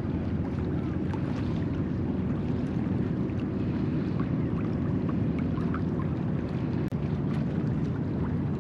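Steady low rumble of wind buffeting the microphone over choppy water, with a few faint ticks.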